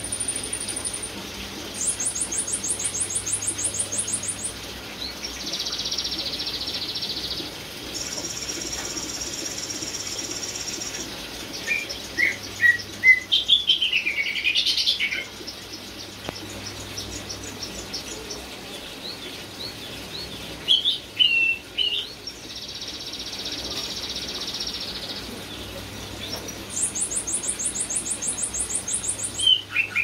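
Caged cucak ijo (green leafbird) singing a varied, filled-in song: high rapid trilled phrases and buzzy insect-like stretches alternate with loud, swooping whistled notes, the loudest bursts a little before halfway and again about two-thirds through.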